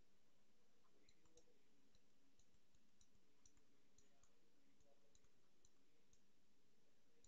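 Near silence: room tone with faint, irregular clicks, about a dozen spread through, typical of a stylus tapping on a pen tablet during handwriting.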